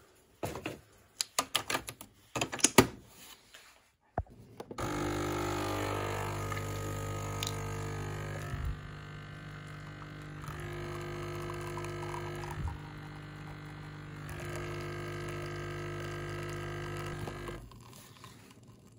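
Capsule coffee machine being handled with a few clicks and knocks, then its pump runs with a steady hum for about thirteen seconds, dipping and rising in level a few times before it stops as the coffee finishes brewing.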